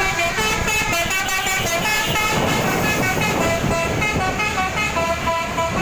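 Basuri multi-tone telolet bus horn playing a melody, its held notes stepping from pitch to pitch every few tenths of a second over the low rumble of the bus.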